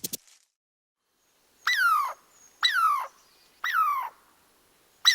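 An animal giving short, falling cries, three of them about a second apart, with a fourth starting at the end.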